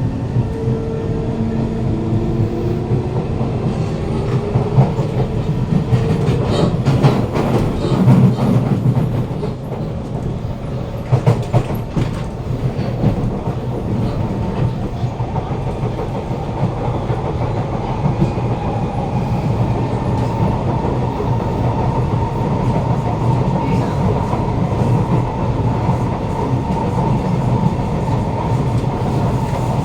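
Kawasaki C151 train's GTO-VVVF traction motors whining inside the carriage, the whine rising in pitch over the first few seconds as the train picks up speed, then running on steadily. A few loud knocks come from the running gear about seven to twelve seconds in.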